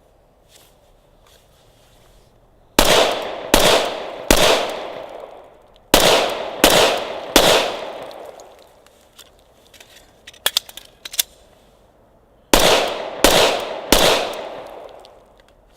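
Glock 21 Gen 4 .45 ACP pistol firing nine shots in three strings of three, about three-quarters of a second apart, each shot trailing off in an echo. A few light clicks come between the second and third strings.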